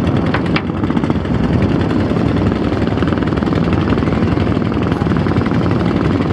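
An engine running steadily with a fast, even rattle, loud throughout.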